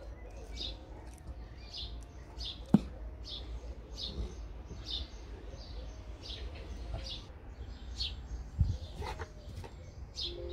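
A small bird chirping over and over, a short high chirp about every two-thirds of a second. A single sharp click about three seconds in is the loudest sound, over a low outdoor rumble.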